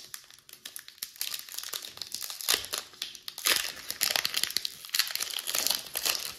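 Foil wrapper of a Pokémon trading card booster pack crinkling and tearing as it is ripped open by hand, a dense run of crackles.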